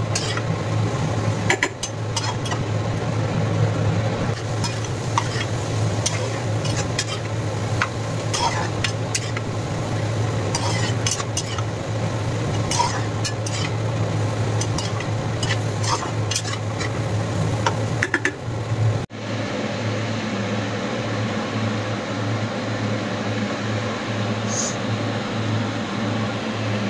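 Metal spatula stirring and scraping sliced ridge gourd and egg around a nonstick frying pan, with frequent sharp clicks against the pan over a sizzle and a steady low hum. The stirring clicks stop at a sudden cut about 19 seconds in.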